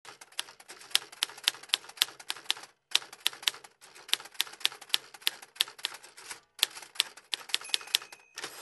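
Manual typewriter keys clacking in quick runs of several strikes a second, broken by a few short pauses, as a line of text is typed.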